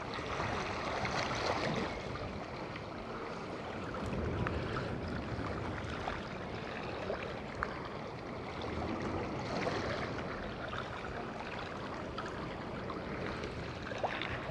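Small sea waves washing in steadily, the wash swelling and easing every few seconds.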